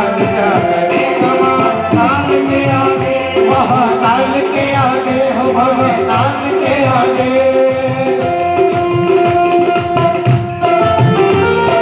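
Indian devotional music with tabla-style drumming under a sustained melody, with a wavering melodic line in the middle.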